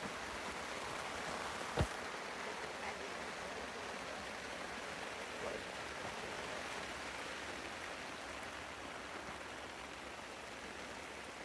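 Steady rain falling and pattering on surfaces, with a single sharp click a little under two seconds in.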